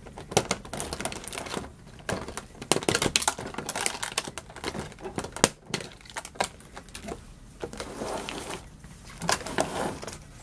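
Stiff clear plastic blister packaging crackling and clicking as it is pried open and handled, in many irregular sharp clicks and crinkles.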